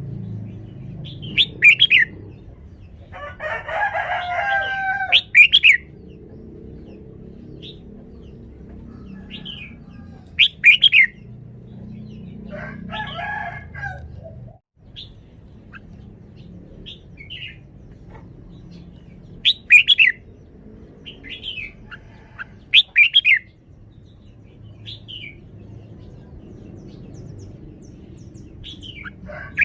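Red-whiskered bulbul singing in its cage: short, loud, sharp phrases every few seconds with softer chirps between them. Twice, a longer, lower warbling call lasting about two seconds.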